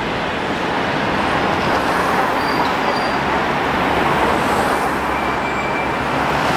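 Steady city road-traffic noise, a continuous rush that grows a little louder about two seconds in and holds.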